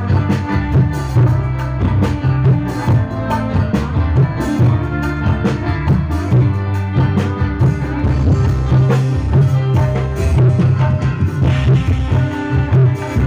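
Live orkes band music played loud through a large PA sound system: keyboard, bass guitar and drum kit playing, with a strong steady bass line and drum hits throughout.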